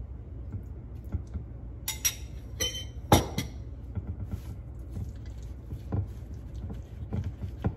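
A metal spoon clinking and knocking against ceramic bowls as filling is served, with the loudest knock about three seconds in. After that come soft taps and handling noises as a flour tortilla is rolled into a burrito on a plate.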